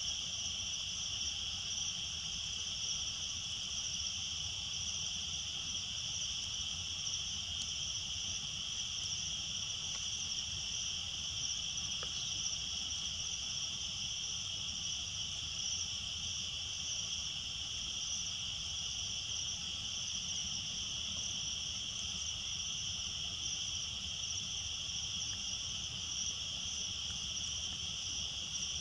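A steady chorus of night insects, an unbroken high-pitched trill in two tones.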